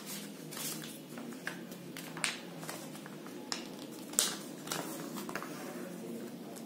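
Origami paper being folded and creased by hand on a table: soft rustling with a few sharp, short crinkles, the loudest about four seconds in.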